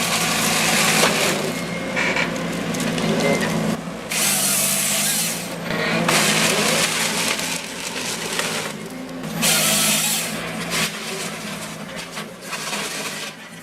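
Forestry harvester at work: its engine and hydraulics run steadily while loud bursts of noise come from the harvester head sawing and stripping trunks, strongest twice, about four and ten seconds in.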